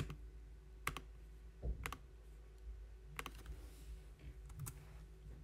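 Faint, separate clicks of an Acer laptop's keys and touchpad, a handful of single presses spaced irregularly about a second apart.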